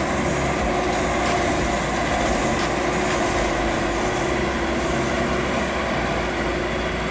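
DB class 111 electric locomotive hauling a rake of regional coaches along the platform: a steady hum of the locomotive with wheel and rolling noise, and a few sharp clicks in the first three seconds.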